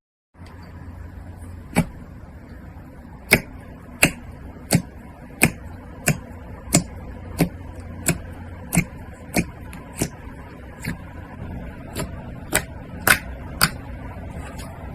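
Slime being played with by hand, giving a run of sharp popping clicks about every two-thirds of a second, over a steady low hum.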